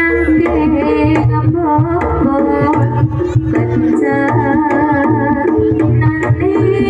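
Javanese jaranan gamelan music: kendang hand drums beating under a wavering, bending melody line, over a steady low hum.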